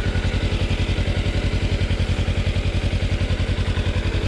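Kawasaki Versys-X 300's parallel-twin engine idling with the bike at a standstill, a steady, even pulsing beat.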